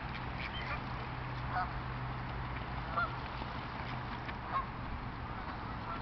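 Geese honking from a flock on the water: a few short, scattered honks, the loudest about three seconds in, over a steady low hum.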